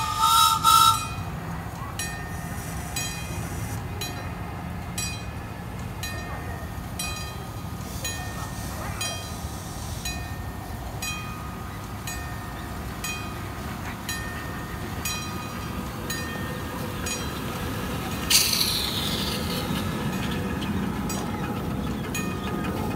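Live-steam miniature locomotive running: a steam whistle blows briefly at the start, then the train rolls on with a regular tick about once a second over a low rumble. About 18 seconds in a loud hiss of steam rises as the engine draws close.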